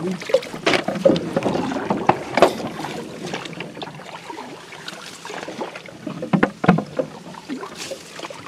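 Irregular splashing and knocking of water around a small wooden fishing boat as a big hooked tambaqui thrashes beside it.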